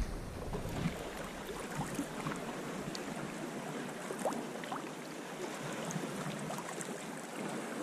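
Gentle water around a sea kayak: lapping and dripping, with small scattered ticks and splashes over a faint steady wash.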